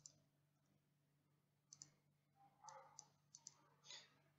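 Faint computer mouse clicks over near silence: several short clicks, some in quick pairs, with a faint steady hum underneath.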